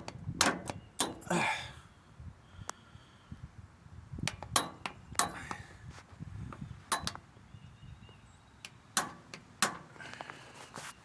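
Irregular metal-on-metal taps and clinks from hand tools working the mower wheel's retaining pin, bending its end over to lock the wheel on. Single sharp knocks come in small clusters, a few seconds apart.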